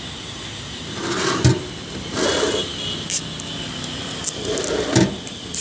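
Handling of a mild steel slide storage cabinet: short scraping and sliding noises, with a sharp metal knock about a second and a half in and another near the end.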